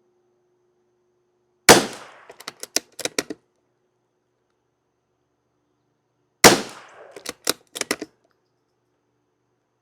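Two shots from a Savage Mark II FV bolt-action .22 LR rifle, about five seconds apart. Each is followed by a quick run of clicks as the bolt is worked to eject the case and chamber the next round.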